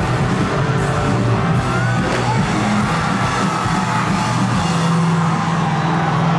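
Live rock music from a band on an outdoor stage: a loud, dense mix with singing and a regular beat, and the crowd yelling and whooping over it.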